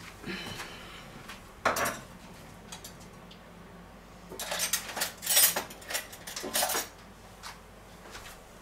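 Kitchen cutlery and dishes clattering and knocking together: a sharp knock a couple of seconds in, then a longer run of rattling and clinking around the middle.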